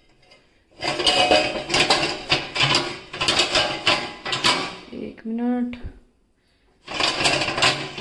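Wire dishwasher racks sliding and rattling, with steel pots and pans clinking against each other, in two spells of clatter separated by a brief pause. A short hum of a voice comes in about five seconds in.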